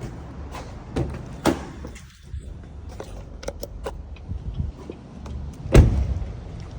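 Scattered irregular clicks and knocks from a car being handled, with one loud thump about six seconds in, over a steady low rumble.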